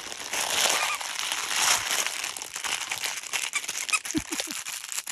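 Crinkly chew toy rustling and crackling as a dog chews and mouths it, with a couple of short low pitched sounds about four seconds in.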